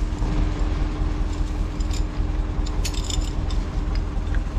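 Steel chains clinking and rattling as they are fastened around beech logs for winching, a cluster of clinks about two to three seconds in, over the steady low drone of an LKT 81 Turbo skidder's diesel engine idling.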